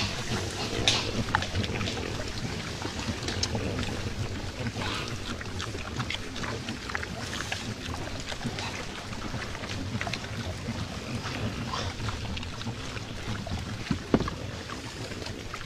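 A herd of wild boar feeding close together: a dense, steady jumble of small crunching, rustling and shuffling noises in mud and leaf litter, with one sharper knock about fourteen seconds in.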